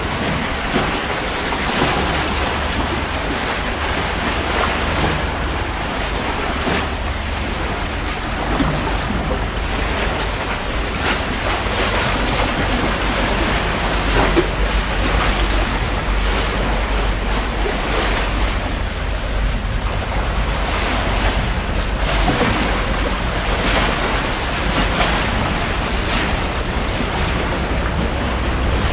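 Wind buffeting the microphone with a steady low rumble, over waves washing on the shore.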